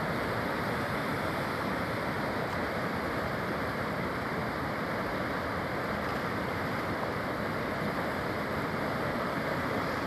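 Fast mountain river rushing over rocks and rapids: a steady, even rush of water.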